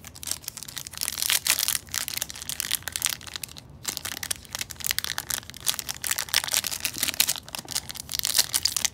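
Foil trading-card pack wrapper crinkling as it is handled and torn open by hand, a dense run of crackles with one brief pause about four seconds in.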